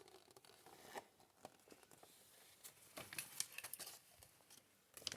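Faint scattered rustles and light taps of cardboard and playing cards being handled, a small cluster of them about three seconds in.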